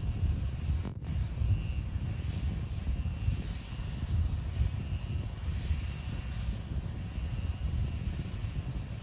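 Steady low rumble of Starship SN8's Raptor rocket engine, heard from far off during the climb.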